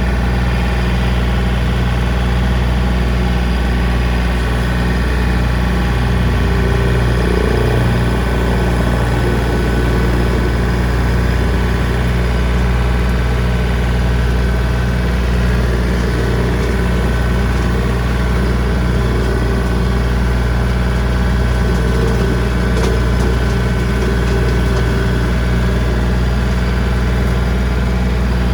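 John Deere 3025D compact tractor's three-cylinder diesel running steadily at a constant speed while pulling a rotary cutter (brush hog) slowly in first gear low range.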